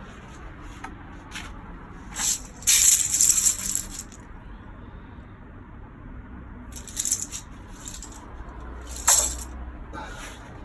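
Several short bursts of rattling clatter of small hard objects, the longest about two to four seconds in and shorter ones near the middle and end.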